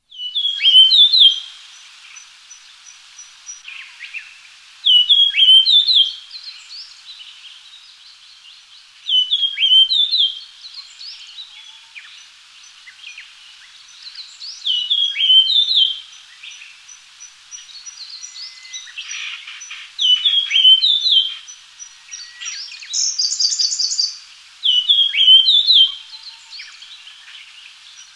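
Japanese grosbeak singing a short whistled phrase of several clear, sliding notes, repeated six times about every five seconds. A brief high, buzzy trill cuts in once just before the last phrase, over faint, evenly spaced high peeps in the background.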